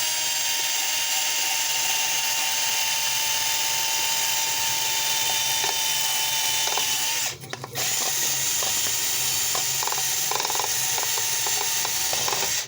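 Electric drill running an abrasive wheel against a cast iron tea kettle, grinding off rust with a steady whine and hiss. It stops about seven seconds in and starts straight up again, and the second run has scraping and clicking as the wheel catches on the metal.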